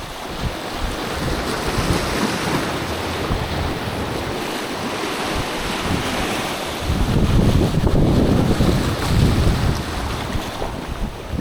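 Sea waves washing on a rocky shore, with wind buffeting the microphone; the rumble grows louder for a few seconds about seven seconds in.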